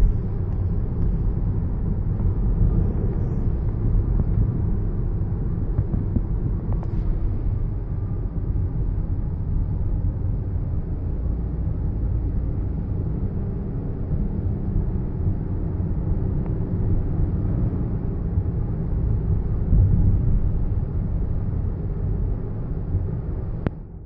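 Steady low rumble of a car's road and engine noise heard from inside the moving car's cabin, dipping sharply right at the end.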